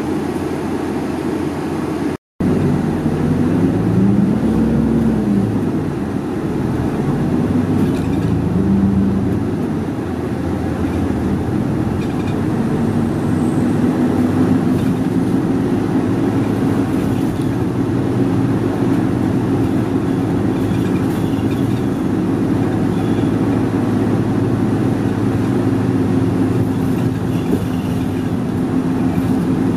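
A route bus's diesel engine heard from inside the cabin, over steady road noise. Its pitch rises and falls twice in the first ten seconds, then it settles into a steady drone.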